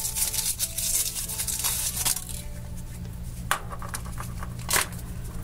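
Foil wrapper crinkling as it is peeled off a hollow chocolate egg, then the chocolate shell snapping open with two sharp cracks about a second apart, over soft background music.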